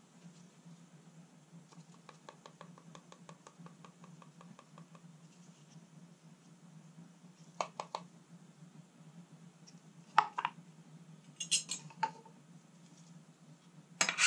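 Gloved hands handling a paper cup and metal tongs on a steel ice cream roll cold plate: light rapid ticking, then a few separate knocks and clinks, the loudest near the end as the tongs are picked up. A steady low hum runs underneath.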